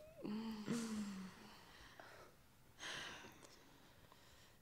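A woman laughing softly to herself: two drawn-out voiced notes in the first second, then a breathy, sigh-like exhale about three seconds in.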